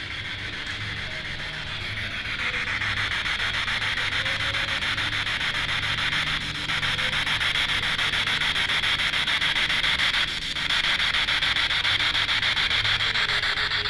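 Handheld spirit box radio sweeping through stations: a steady hiss of static, chopped by the rapid scan, with faint snatches of sound that the ghost hunter takes for a woman singing.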